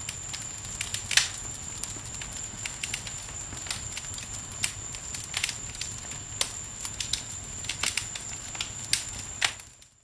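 Wood campfire crackling, with irregular sharp pops over a low steady rumble of the flames; the loudest pop comes about a second in. A thin steady high whine runs underneath, and everything fades out just before the end.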